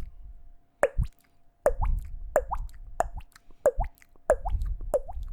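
Beatboxer's mouth-made water-drop sound effect: a tongue click followed by a quick rising 'bloop', like a droplet falling into water. It is repeated about seven times at a steady pace, roughly every two-thirds of a second.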